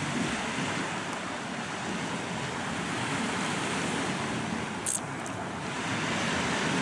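Sea waves washing against a rocky shore, with wind buffeting the microphone: a steady rushing noise. A short sharp click about five seconds in.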